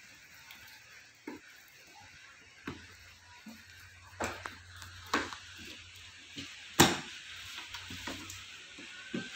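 Packaging being handled as a long black gun case is unwrapped from bubble wrap and cardboard: soft crinkling and rustling with scattered light knocks and clicks, and one sharp click about seven seconds in.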